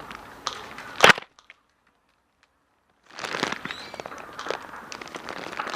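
Airsoft guns shooting: sharp snaps and clicks over steady outdoor noise, with one loud crack about a second in. The sound then drops out completely for about two seconds and comes back with more clicks.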